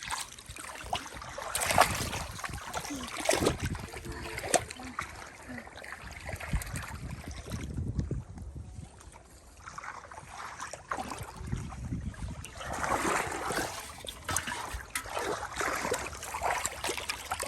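Muddy water sloshing and splashing in irregular strokes as people wade and grope through it for fish by hand.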